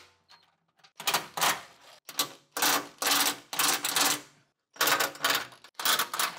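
Cordless impact wrench hammering in a series of short bursts, one after another, as it backs out the tight 12 mm bolts of the metal engine splash pan.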